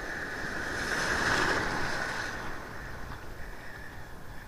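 Sea water washing and splashing close to the microphone, swelling about a second in and then fading.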